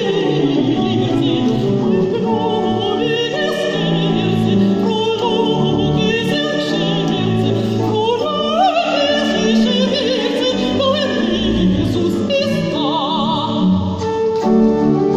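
A woman sings in classical operatic style with a wide vibrato, accompanied by a pipe organ. The voice stops about a second before the end while the organ plays on alone.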